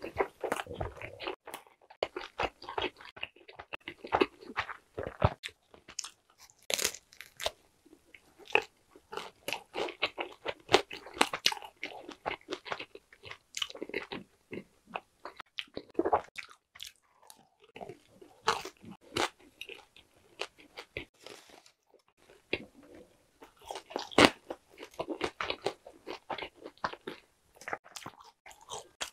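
Crunching and chewing of a thick, crisp pan-dough pizza crust, in irregular clusters of crisp bites with short pauses.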